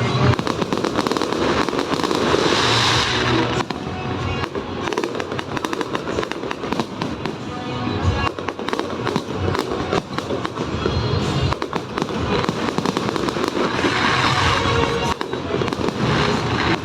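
Fireworks display going off in dense volleys of rapid crackling bursts, many sharp pops in quick succession.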